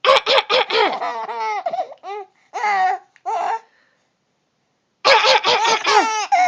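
A baby's cough-like laughter in rapid short bursts: a long run of laughs, a pause of about a second and a half, then another run near the end.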